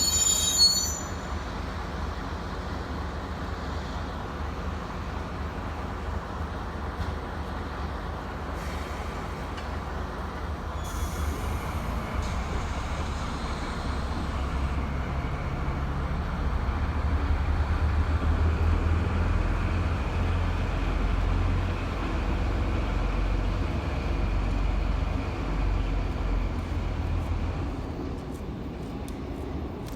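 Slow train on a siding: a wheel squeal that stops about a second in, then a steady low rumble from the DD55 diesel locomotive hauling a two-car Tokyu 7200-series set. The rumble grows louder past the middle and drops away near the end.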